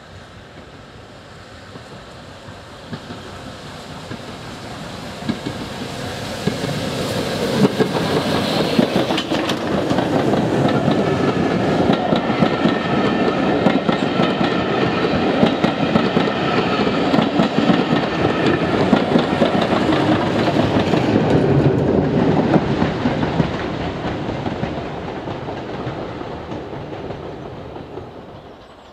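A rebuilt Bulleid light pacific steam locomotive and its train of coaches approach and pass close by. The wheels clatter over the rail joints as the coaches go past, and the train grows loud over the first several seconds, then fades away near the end.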